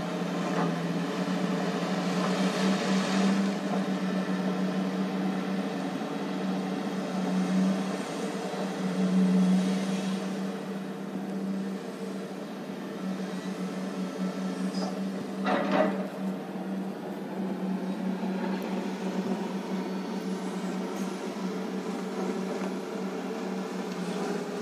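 Hydraulic excavator's diesel engine running steadily as it loads coal into a dump truck: a constant hum that swells now and then, with one short knock a little past halfway.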